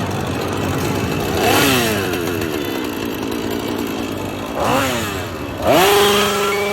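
Chainsaw engine idling, then revved: a quick rev that rises and falls about a second and a half in, another near five seconds, then a climb to a high rev held from just under six seconds.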